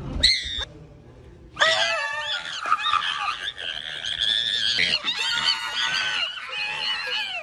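A person screaming, high-pitched and raspy, the pitch wavering, held for several seconds from about a second and a half in.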